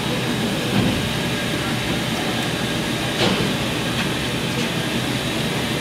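Milwaukee MX Fuel cordless 72-volt breaker hammering continuously into concrete, a steady mechanical racket with two louder knocks, about a second in and just past three seconds.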